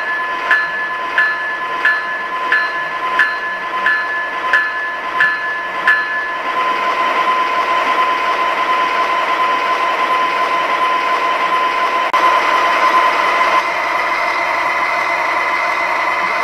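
Model-railroad sound effects. An electronic bell dings evenly about one and a half times a second over a steady high whine, and stops about six seconds in. A louder steady rushing sound then takes over.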